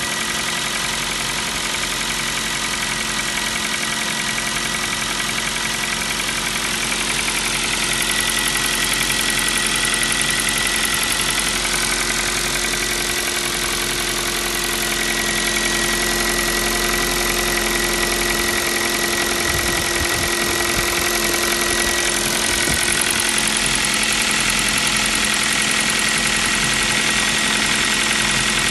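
Kia Rio 4's 1.6-litre four-cylinder petrol engine running at idle with a steady, rapid knock: piston slap.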